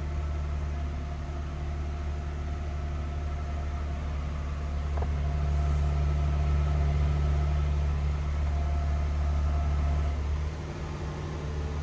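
2025 Toyota Tundra idling with a steady low hum, a little louder in the middle and easing near the end, with a single click about five seconds in.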